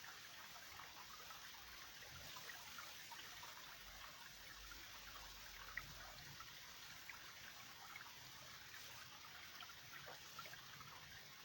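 A small forest stream trickling faintly and steadily, with one brief click about halfway through.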